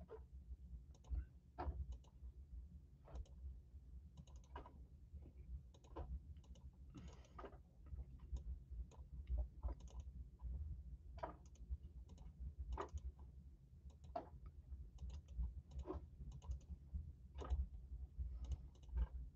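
Faint, irregular clicks of a computer mouse and keyboard in use, a few every second or so, over a low steady hum.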